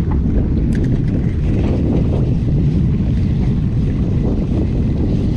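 Wind buffeting the microphone on a boat at sea: a steady low rumble with water lapping under it, and a few faint ticks about a second in.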